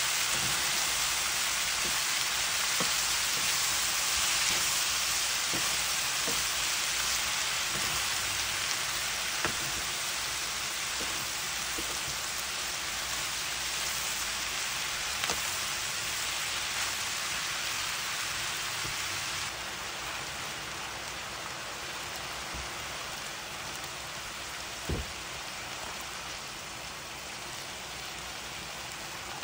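String beans and pork sizzling in a hot frying pan as they are stir-fried with a wooden spatula, with scattered light taps of the spatula on the pan. The sizzle drops to a somewhat quieter level about two-thirds of the way through.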